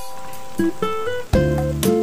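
Background music: an acoustic guitar playing plucked notes, getting fuller and louder a little past halfway.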